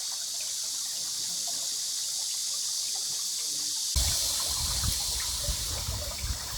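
Water of a small stream trickling and running with a steady hiss. About four seconds in, a low, gusting rumble of wind on the microphone joins it.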